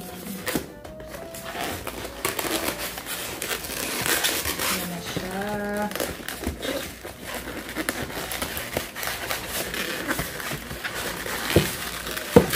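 Plastic packaging crinkling and rustling in bursts while a boxed mini sewing machine is unpacked, with music playing underneath.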